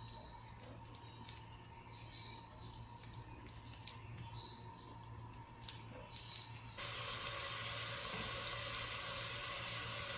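Meatballs frying in olive oil in a pot: a steady sizzle that starts abruptly about seven seconds in. Before that, faint high chirps and small ticks over a low steady hum.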